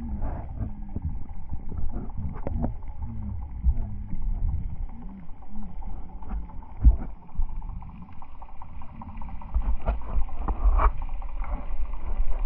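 Muffled underwater sound of sea water around a submerged camera: a low rumble and sloshing with frequent irregular knocks and thumps, dull with almost no high sounds.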